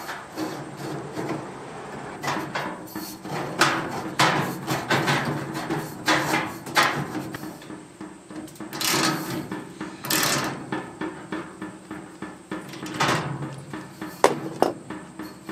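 Irregular metal clicks and knocks from nuts on U-bolt pipe clamps being turned with a hand-held socket on a galvanised steel pipe frame, with a couple of longer, louder sounds about nine and ten seconds in.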